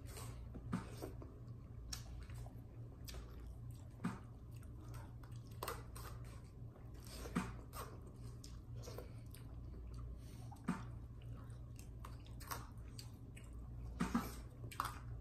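A person chewing a mouthful of chicken tinola eaten by hand, with short, irregular mouth clicks every second or two. A steady low hum runs underneath.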